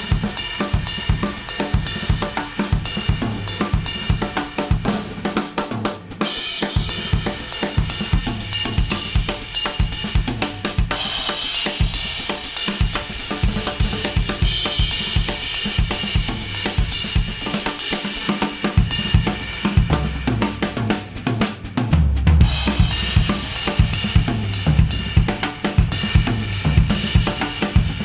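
Instrumental music with a full drum kit (kick, snare, hi-hat and cymbals) playing a steady beat, heard as played back through Apple AirPods earbuds into an artificial ear.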